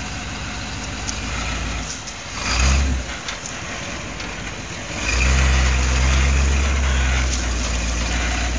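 Engine of a lifted Chevrolet rock-crawling pickup running low, with a short burst of throttle about two and a half seconds in, then held at higher revs under load for about three seconds as the truck climbs onto a boulder.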